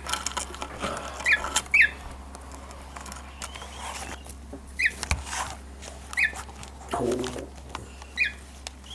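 Cockatiel fledgling giving short, high chirps, five of them spaced a second or two apart, with light clicks and taps in between.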